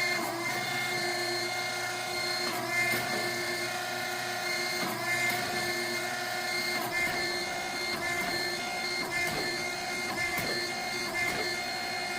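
The motor and hydraulic pump of a 14-ton log splitter, converted into a vertical forging press, running with a steady whine of several fixed tones, with a few faint clicks.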